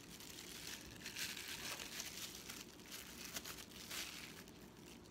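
Faint, intermittent crinkling of thin plastic: disposable food gloves and cling wrap rustling as hands press fresh chili peppers onto a log of raw ground pork.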